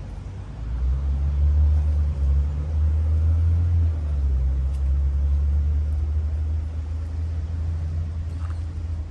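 A motor vehicle's engine running close by, a deep low rumble that swells about a second in and slowly eases off.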